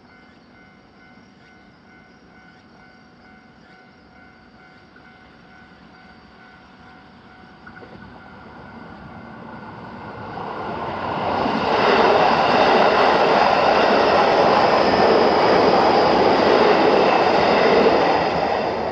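A JR Joban Line train approaching and passing over a level crossing: a wheel-and-rail rumble that builds over several seconds, is loud for about six seconds, then starts to fade. Before the train arrives, the crossing's warning bell rings faintly as a repeating tone.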